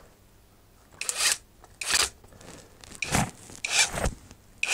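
Metabo SSD 18 LT 200 BL cordless impact driver on its third, 200 Nm setting, driving a long screw into a block of timber in short trigger pulls. Four brief bursts come about a second apart, then a longer burst starts near the end.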